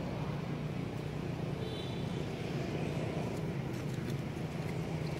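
Steady low outdoor background rumble, with a brief high chirp about two seconds in.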